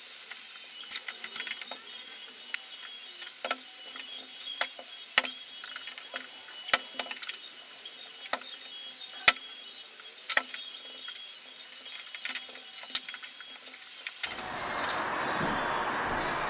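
A cloth pad being rubbed by hand over a veneered wooden case, giving a steady high hiss with irregular sharp clicks and taps. A few louder clicks come around the middle. Near the end the sound changes to a fuller, duller noise.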